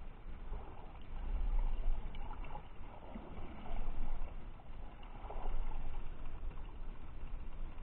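Muffled underwater water noise from a submerged camera in its waterproof housing: a steady low rumble with sloshing surges that swell and fade every second or two.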